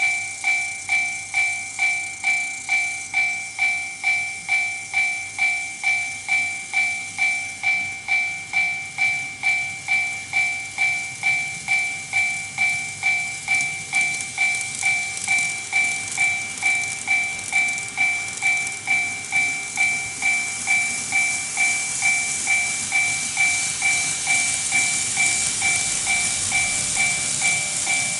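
TOMIX Automatic Level Crossing II's electronic warning bell ringing, a two-tone ding repeated about twice a second. From about halfway a high hiss grows louder, the model trains running past on the track.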